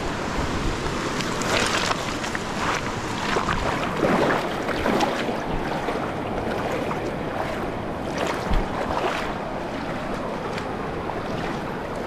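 Moving water with brief splashes about 1.5, 3, 4 to 5 and 9 seconds in, and wind buffeting the microphone.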